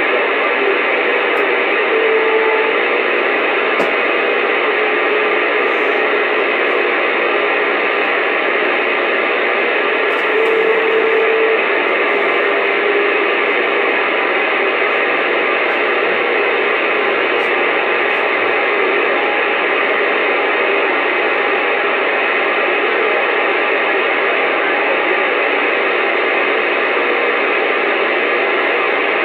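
Uniden Bearcat CB radio receiving on AM with no one talking: a steady hiss of band noise from its speaker, with a few brief faint low whistles.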